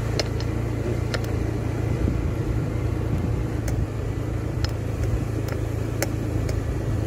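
Automatic motor scooter's engine running steadily at low speed on a sandy dirt track, a constant low hum. Scattered sharp clicks and knocks come through at irregular moments over it.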